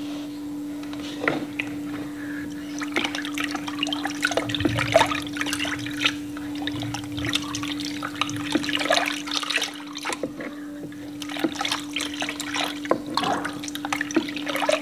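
Spatula stirring thin rice-flour and coconut-milk batter in a plastic bowl: irregular liquid sloshing and splashing with small clicks of the spatula against the bowl, as pandan paste is mixed in.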